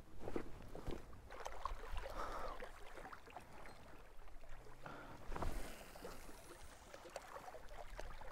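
Footsteps and scrapes on loose rock and dirt as someone scrambles along a rocky shoreline, small stones crunching at irregular intervals, with a louder crunch about five and a half seconds in.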